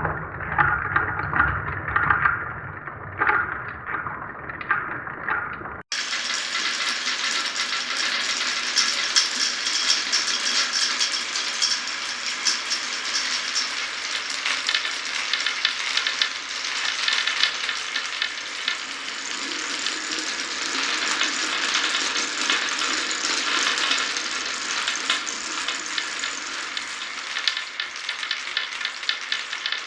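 Glass marbles rolling and clicking along a wooden marble run. About six seconds in the sound changes abruptly to a dense, continuous rattle of many marbles clattering along the track at once.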